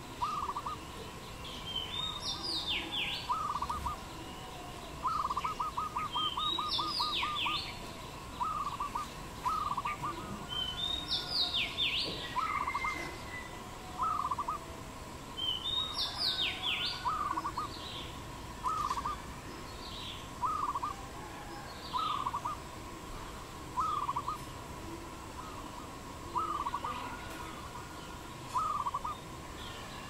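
A dove cooing in short repeated phrases every second or two, with a quick run of many notes about five seconds in. Another bird's higher, sweeping calls come in four times over the first half.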